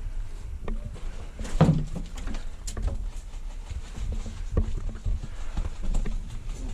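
Irregular knocks and clicks over a steady low rumble, with one louder thump about one and a half seconds in.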